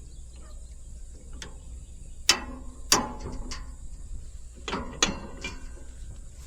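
Metal clanks and clicks from handling the bush hog's hitch and bent jack: about five sharp strikes with short ringing, the two loudest in the middle, over a steady low hum.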